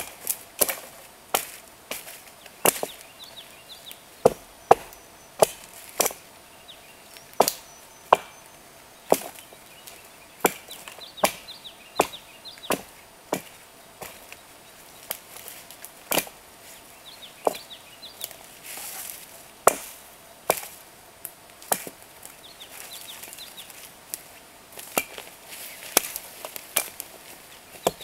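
Hatchet chopping into a dead fallen log: a steady run of sharp single blows, about one to two a second, with a brief pause about three-quarters of the way through.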